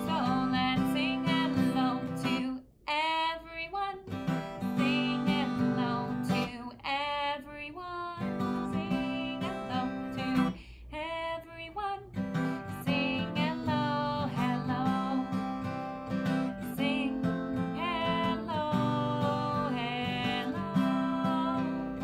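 A woman singing while strumming chords on an acoustic guitar. The guitar drops out briefly three times while her voice carries on alone.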